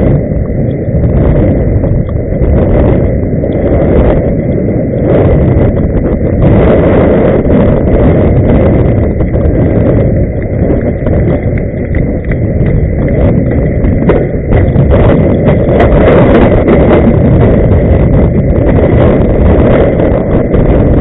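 Loud, steady rumbling noise of wind buffeting the microphone and inline-skate wheels rolling over the road surface, fluttering unevenly throughout.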